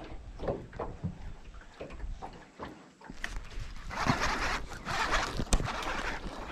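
Water splashing in bursts alongside the boat, with light knocks and a sharp click, as a hooked fish is fought close in.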